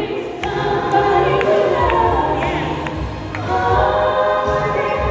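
A woman singing into a microphone over loud amplified dance music, holding long notes, with a steady bass underneath.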